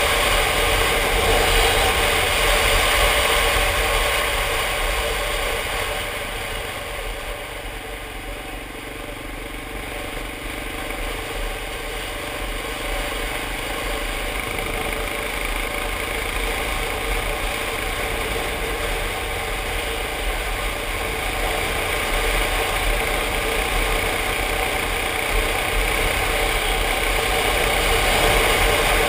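Yamaha Ténéré motorcycle engine running while riding, with wind rushing over the camera. The sound eases off a few seconds in, is quietest about a third of the way through, then builds steadily back up.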